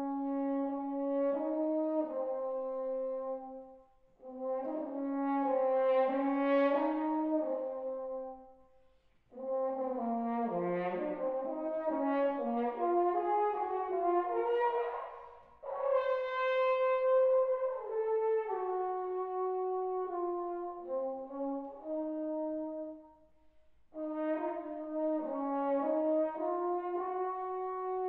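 Unaccompanied French horn playing a melody in phrases of held notes, with short breaks between phrases about 4, 9 and 23 seconds in.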